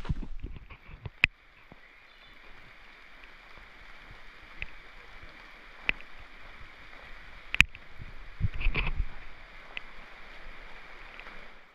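Steady hiss of rain in the woods, broken by a few sharp ticks of drops striking close by and a brief low rumble a little past the middle.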